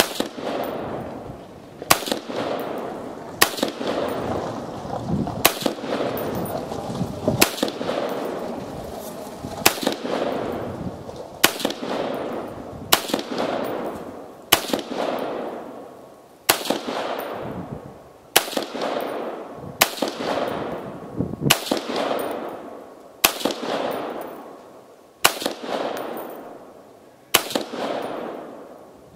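A 7.62x39 AR-15 rifle (Palmetto State Armory upper) firing single shots at a steady pace, about one every one and a half to two seconds, each with a long rolling echo. Every round goes off with no light-strike misfires: the firing-pin problem is solved.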